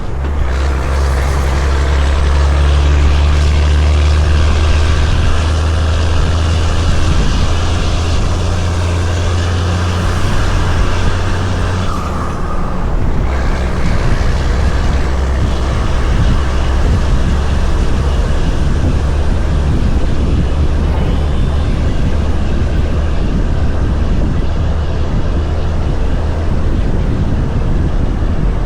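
Heavy-haul semi truck's diesel engine running under load with road noise while pulling a loaded excavator trailer at about 129,000 lbs combined weight; a steady deep drone whose note shifts briefly about twelve seconds in.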